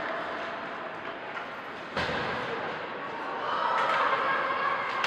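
Ice hockey game sound in a rink: a steady hubbub of spectators, one sharp knock of play about two seconds in, and crowd voices growing louder near the end.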